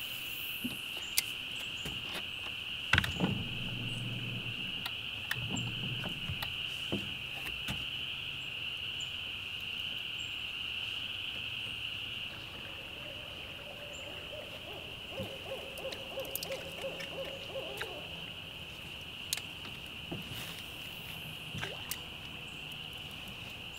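Steady high-pitched insect buzzing that runs on without a break, with a few sharp clicks and knocks scattered through it.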